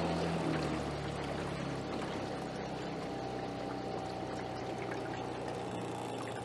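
Small outboard motor running at low speed, with water rushing and splashing along the aluminum boat's hull. The motor's hum drops slightly in pitch within the first couple of seconds, then holds steady.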